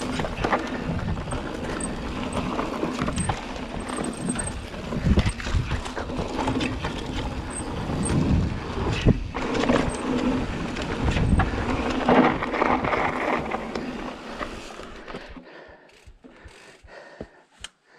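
Mountain bike descending a dirt singletrack: tyres rolling over dirt and roots, with the bike rattling and knocking over the bumps. About three seconds from the end it quietens to a few separate clicks as the bike slows.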